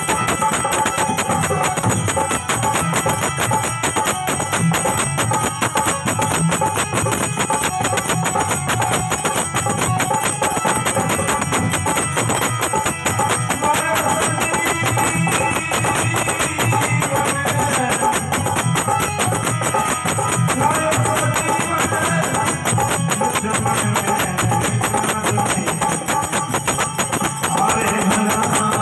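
Harmonium playing a devotional bhajan melody over steady percussion with jingling.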